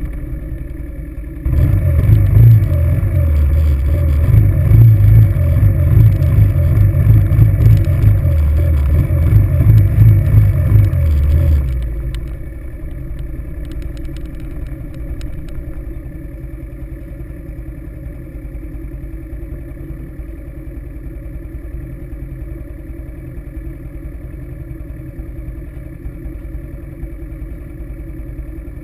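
ATV engine running under throttle with uneven surges as the quad rides along, then falling about twelve seconds in to a steady idle once it has stopped.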